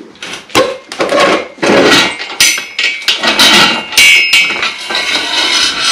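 Steel acrow prop being knocked and worked loose: a series of sharp metal-on-metal clangs, several of them ringing on afterwards.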